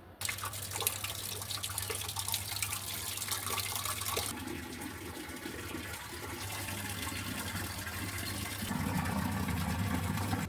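Water running in a steady splashing stream. It starts suddenly, turns duller about four seconds in, and stops abruptly.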